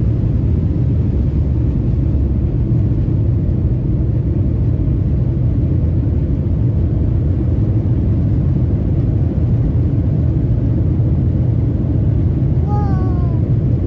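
Jet airliner's engines at takeoff power, heard inside the cabin as a loud, steady, deep rumble during the takeoff run and lift-off.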